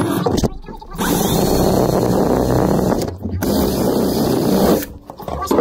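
Cordless drill running under load, boring into black plastic, in two bursts of about two seconds each with a short pause between.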